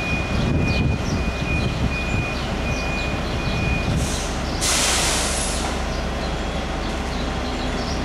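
Asphalt paver and the dump truck feeding it running steadily, a diesel rumble with a thin high whine that stops about four seconds in. Halfway through, a loud hiss lasts about a second.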